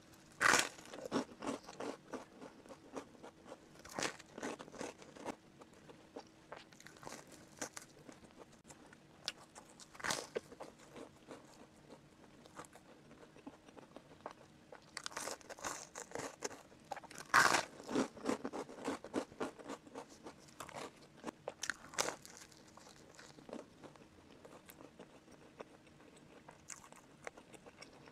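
Bites and chewing of whole-wheat toast bread with spreads, close to the microphone: irregular crunches and mouth sounds, the loudest bites about half a second in, around four and ten seconds, and in a cluster around fifteen to eighteen seconds.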